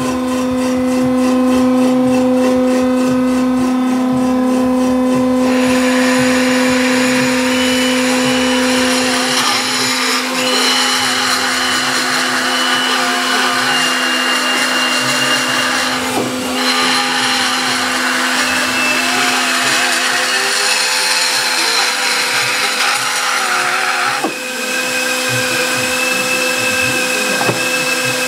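Cylinder head surfacing machine running, its motor humming steadily while the cutter passes over the deck of a Chrysler 440's cast-iron cylinder head, machining down a warped surface until it is flat. The character of the cutting noise changes about ten seconds in and again near the end.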